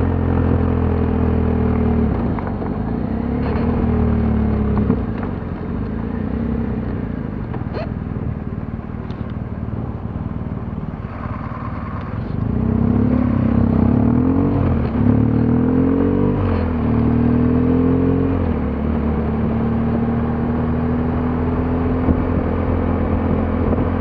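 Motorcycle engine with wind and road noise, heard from on the bike. The engine winds down and runs at low revs while the bike slows for a turn. About halfway through it pulls away, its pitch rising and dropping a few times as it shifts up, then settles into a steady cruise.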